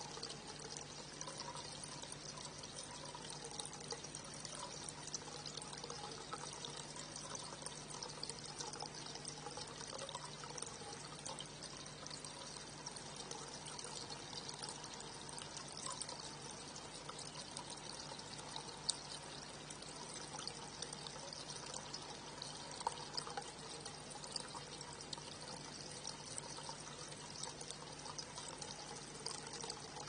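Water trickling steadily with a fine, crackly patter, over a low steady hum.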